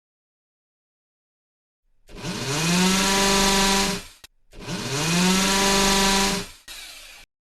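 A power tool's motor buzz, run up twice in bursts of about two seconds. Each burst rises in pitch as it starts and then holds steady before cutting off. A fainter, rougher tail follows the second burst.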